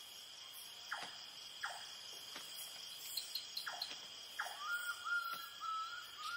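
Night-time insect chorus, crickets trilling steadily at a high pitch, cut by about five short, sharp calls that sweep downward in pitch. Near the end a run of short whistled notes begins.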